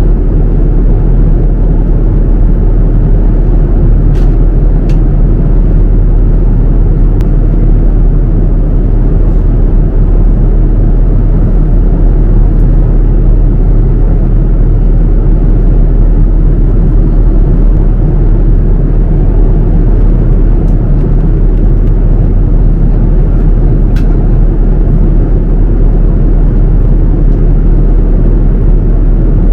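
Steady, loud low rumble of airliner cabin noise inside a Boeing 787-9, from its jet engines and the air rushing past the fuselage. There are a few faint ticks now and then.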